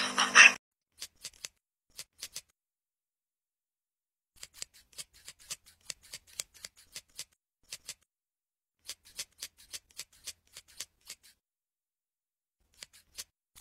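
Small grooming scissors snipping a cat's facial fur, in short runs of quick snips with silent gaps between. A louder sound cuts off about half a second in.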